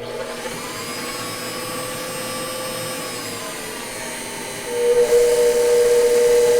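KitchenAid stand mixer motors running with a steady electric whine. A little over four and a half seconds in, the sound gets markedly louder, with a stronger whine.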